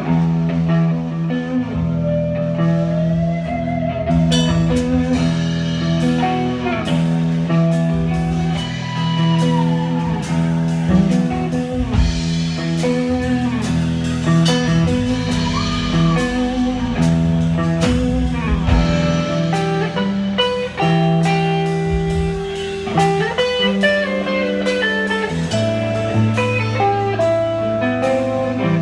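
A blues-rock trio of electric guitar, bass and drums playing a slow instrumental passage, the guitar bending and sliding between notes over held bass notes. Drums and cymbals come in about four seconds in.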